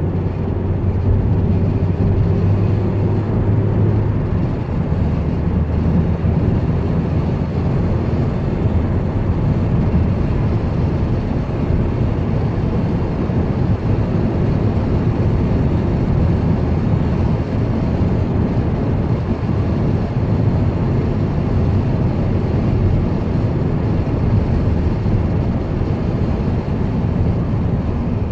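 Engine and road noise inside the cab of a moving Volkswagen Transporter T6 van: a steady low rumble with tyre hiss. A steady engine hum stands out for the first few seconds, then blends into the general noise.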